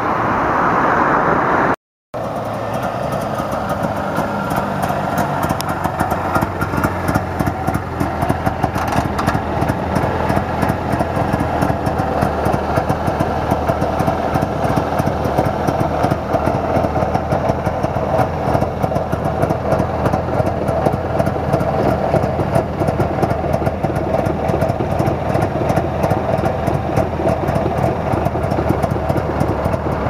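1938 DKW F7's 692 cc two-cylinder two-stroke engine idling steadily with a rapid, even putter. The sound cuts out briefly about two seconds in.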